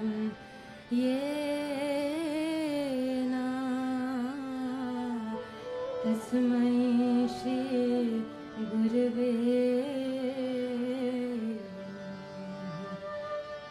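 Woman singing a devotional kirtan melody with long, ornamented held notes over a sustained harmonium accompaniment. The melody comes in about a second in and falls quieter near the end.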